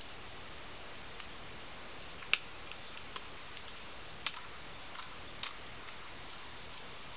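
Sharp plastic clicks and clacks from the keys of an unplugged computer keyboard as a crimson-bellied conure pulls at and chews the keycaps with its beak. There are three louder clicks about two seconds apart, with fainter ticks between them, over a steady hiss.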